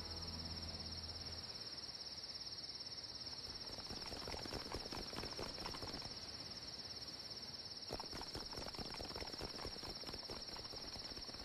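Steady high chirring of crickets in a night-time ambience, with a quick patter of several people's running footsteps from about three and a half seconds in until near the end.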